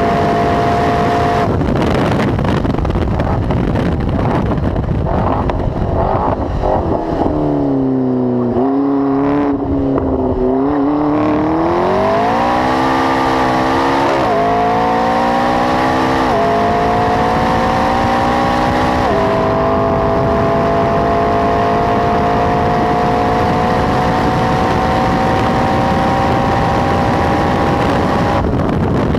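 McLaren 12C's twin-turbo V8, through a Milltek exhaust, driven flat out on track. It runs at high revs for the first second or so, then lifts off as the revs fall through downshifts with pops and crackles, and pulls at low revs through a slow corner. It then accelerates hard through three upshifts, each a sudden drop in pitch, into a long rising pull in a high gear, and lifts off near the end.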